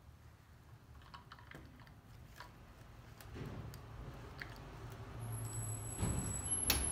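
Light clicks and rattling of plastic parts as the recoil starter pulley is worked free of a chainsaw's plastic starter cover, with one sharp click near the end.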